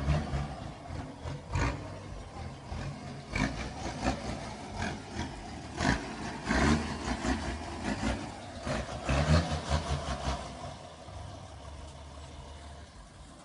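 Chevrolet Silverado pickup engine, rated at 340 cv, rumbling at idle with irregular throttle blips and surges, settling into a steadier idle for the last couple of seconds.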